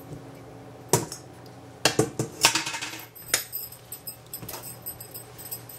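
Stainless steel colander clattering against the sink as it is set down: one knock about a second in, then a quick run of metallic clatters, followed by a few softer knocks and towel rustling.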